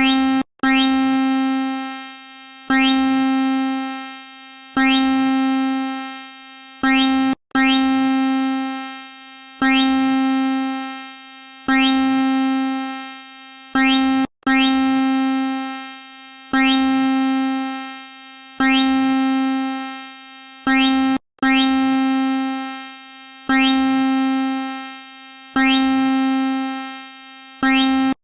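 Synthesized EAS-style emergency alarm tone: a low buzzy tone with a quick upward sweep at each start, sounding about every two seconds and fading away each time. Every fourth tone is cut short, followed by a brief gap, and the pattern repeats.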